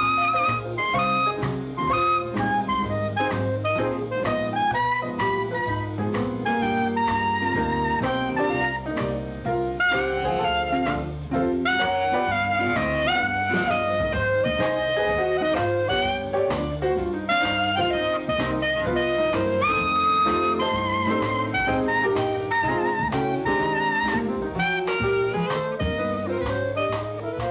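Jazz background music: a saxophone melody of held, wavering notes over a steady drum-kit beat.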